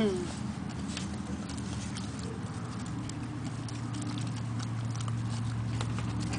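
Border collie puppies moving and eating around the food bowls: scattered light clicks and patter over a low steady hum.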